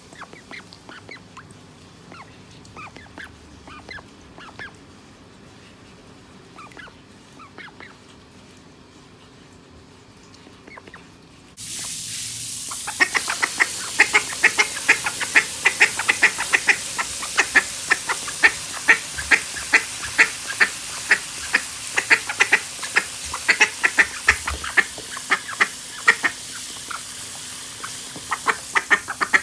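Call duck quacking, softly at first, then in a rapid run of loud, repeated quacks. About twelve seconds in, a garden hose spray nozzle comes on with a sudden steady hiss of spraying water under the quacks.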